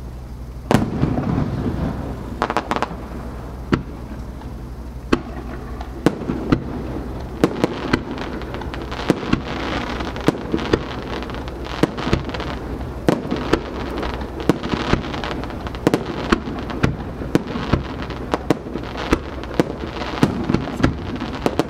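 Japanese aerial firework shells by Marugo being launched and bursting: a sharp bang about a second in, then a quick run of bangs, several a second, from about six seconds on.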